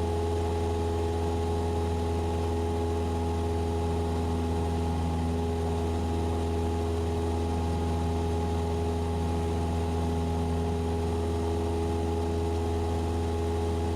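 Cessna 172SP's four-cylinder Lycoming engine and propeller running at a steady in-flight power setting: an unchanging drone with several steady tones.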